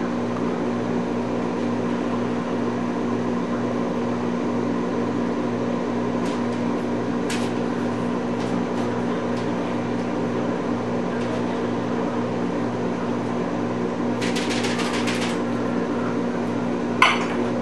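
A steady mechanical hum with a low pulsing drone, like a running fan or appliance motor, at an even level throughout. About fourteen seconds in comes a quick run of light rapid taps, a utensil against a small metal bowl.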